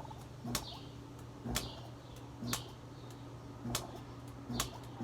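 Arctic King window air conditioner's compressor humming as it tries to start but fails, with sharp clicks about once a second. The owner takes the failed start for some kind of fault or short in the unit.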